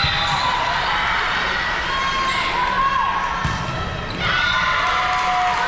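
Volleyball rally on a hardwood gym court: sneakers squeaking as players shift and plant their feet, with a couple of sharp hits of the ball and players' voices.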